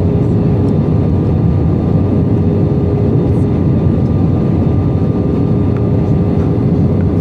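Steady airliner noise heard from the passenger cabin during the landing: an even low rumble of engines and airflow with a faint steady hum on top.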